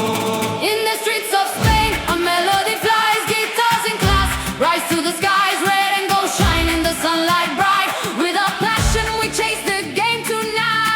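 A song with sung vocals over a band, with deep bass hits about every two and a half seconds.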